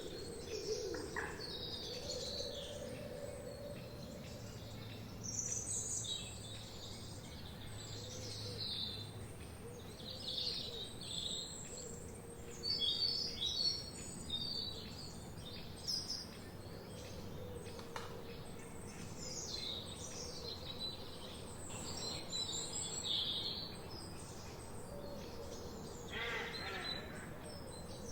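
Forest songbirds singing and chirping: many short, high-pitched phrases from several birds overlapping and following one another over a steady background hiss.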